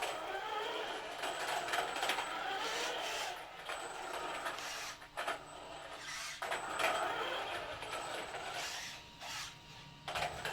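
Arrma Vortex 4x4 3S BLX RC truck driving across a room floor in surges: its brushless motor and drivetrain whir and its tires roll, with short let-offs about five and six and a half seconds in.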